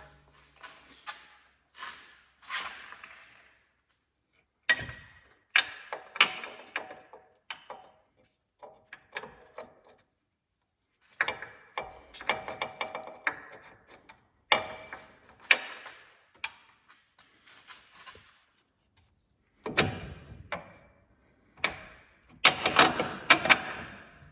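Bursts of metal clanks and clinks with short ringing, as a steel lower control arm on a 2011–2017 Chevrolet Equinox is wiggled into line and its 21 mm mounting bolt worked through the mount.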